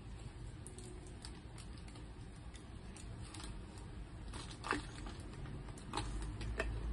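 Plastic bag and paper wrapping rustling and crinkling as food is picked apart by hand inside it, with scattered crackles, a few sharper ones about two-thirds of the way through and again near the end.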